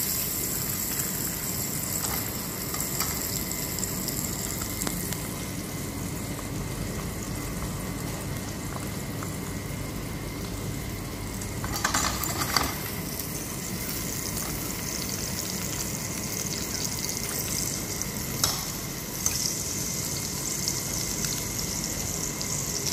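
Bacon, mushrooms and onions frying in oil in a pan with a steady sizzle. A few short knocks, about halfway through and again later on, likely from stirring.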